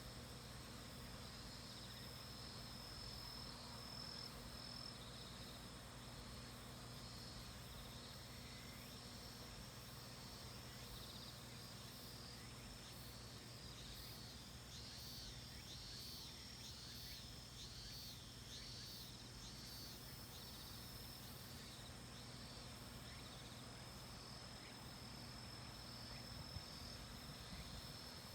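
Cicadas singing faintly: a steady high drone, joined in the middle stretch by another cicada's call repeated about once a second, each note rising and falling.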